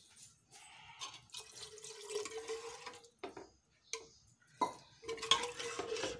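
Steel ladle stirring a thick potato-and-pea curry in a metal pressure-cooker pot: wet sloshing strokes with the ladle scraping and knocking against the pot, in uneven bursts, loudest near the end.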